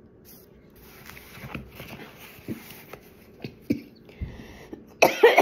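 Soft rustling and handling of an open book being lifted toward the camera, with small clicks and page noise. About five seconds in comes a sudden loud, short throat noise from the reader, which she follows with "excuse me".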